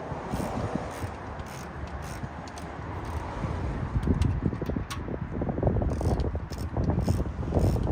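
Socket ratchet clicking in quick runs as the car's brake caliper bolts are tightened back up, with low rumbling handling noise underneath.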